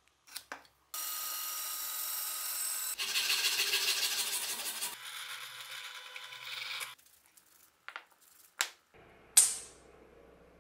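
Bench drill press motor spinning up and running steadily. Its bit then bores into an ash handle block for about two seconds, the cutting noise easing off before the machine cuts out abruptly. A few light clicks follow, then one sharp knock near the end.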